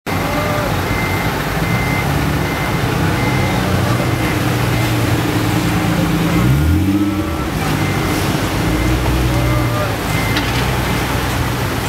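Nissan 370Z V6 engines running at low speed as the cars roll through a parking lot, with a brief rise in engine pitch a little past halfway as one car pulls past. Short, high beeps sound on and off behind the engines.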